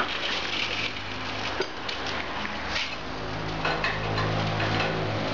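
Engine hoist lowering a hanging engine and transmission: metal clinking and rattling from the chain, hoist and engine, with a low steady hum building up in the second half.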